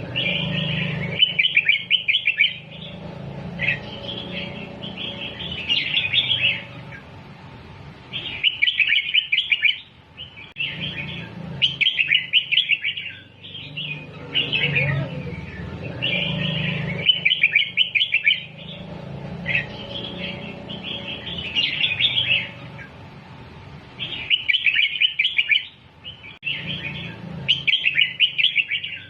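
Red-whiskered bulbul singing: short phrases of quick whistled notes with brief pauses between them, the same sequence of phrases coming round again about every eight seconds.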